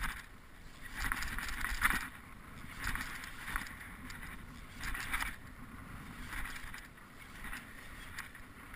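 Small waves lapping against the hull of a fishing boat, a short splash about every one to two seconds over a low steady rumble.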